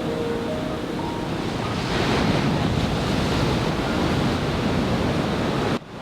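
Ocean surf on a sandy beach, a wave breaking and washing in about two seconds in, with wind on the microphone. The sound cuts off abruptly near the end.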